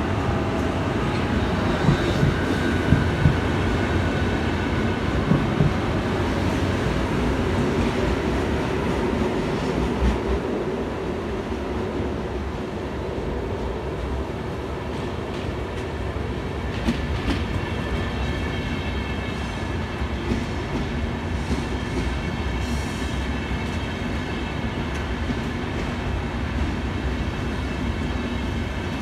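Electric trains moving through a railway station: a steady rumble of wheels on track, first from a VR Sm4 electric multiple unit, then from an Sr2 electric locomotive pulling double-deck InterCity coaches in. A high, steady whine joins the rumble a little past halfway.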